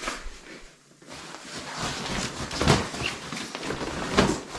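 Rustling and crinkling of a Hikenture sleeping pad being handled and laid out on a bunk, with two louder bumps about a second and a half apart.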